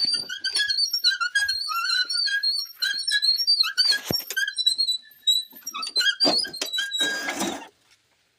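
Quick, repeated high-pitched squeaks, several a second, typical of an unoiled wheelbarrow wheel turning. A scraping rattle comes about four seconds in, and a louder burst of scraping just before the end.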